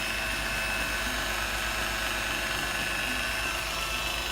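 Rotary buffer running steadily with a high-pitched motor whine as its pad is worked slowly across a boat hull, compounding and waxing the gelcoat.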